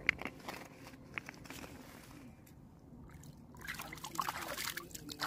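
Shallow lake water lapping and trickling around hands releasing a bass at the shoreline, with a sharp click at the start and another about a second in, and livelier splashing in the last second or so as the hands swish through the water.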